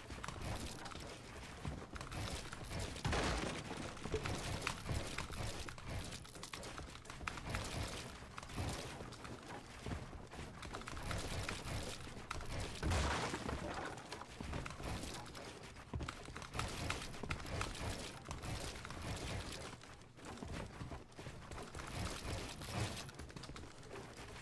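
Shooter video game audio with repeated gunfire bursts, over many rapid clicks of computer keyboard keys. The loudest bursts come about three seconds in and again about thirteen seconds in.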